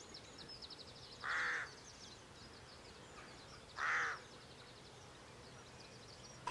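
A crow cawing twice, two short harsh calls about two and a half seconds apart, over faint high twittering of small birds.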